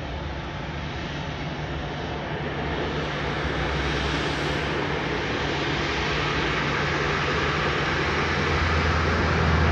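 Boeing 737-700's CFM56 jet engines running at low power as the airliner taxis and turns after landing, a steady jet rush over a low hum, growing louder as the engines come round to face the listener.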